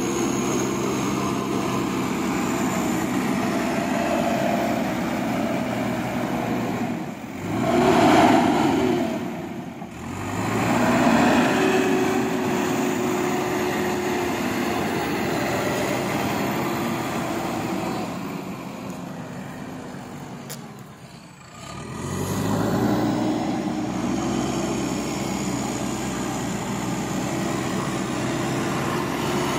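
JCB 3DX backhoe loader's diesel engine running under load as the machine pushes soil with its front bucket. The engine note drops away and climbs back up three times.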